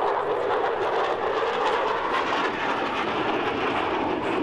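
F-16 fighter jet flying overhead in a banking turn: a steady rushing jet noise that holds level throughout.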